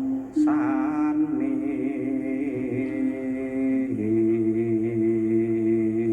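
A singing voice holding long, wavering notes in a chant-like melody, with a deeper held note joining about four seconds in.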